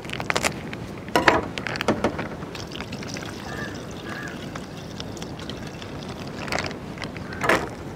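Milk poured from a cut plastic packet into a blender jar holding chocolate pieces: a steady splashing pour through the middle and later part. Before it, a few crinkles and snips of the plastic packet being cut open, and a couple of sharper packet crinkles near the end.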